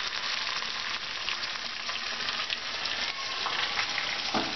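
Tempering of curry leaves, dried red chillies and garlic frying in hot oil in a small kadai: a steady, crackling sizzle.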